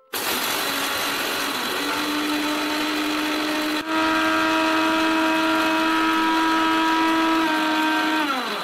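Bajaj mixer grinder running, grinding dry-roasted urad dal into a coarse powder in its steel jar. The motor hum dips briefly about four seconds in and comes back a little louder, then falls in pitch and winds down near the end as it is switched off.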